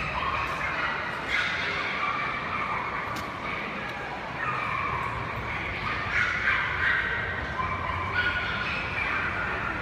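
Dogs barking, several barks overlapping and coming irregularly.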